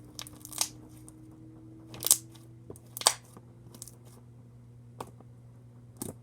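Soft slime being squished and pulled by hand, giving a few short, sharp crackling pops, the loudest about two and three seconds in.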